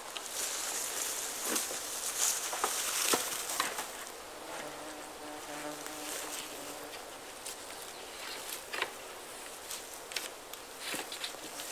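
A flying insect buzzing close by, a steady hum from about four and a half to seven seconds in. Around it come rustling and scattered sharp knocks and clicks of long wooden poles being lifted and stood against each other, the loudest about three seconds in.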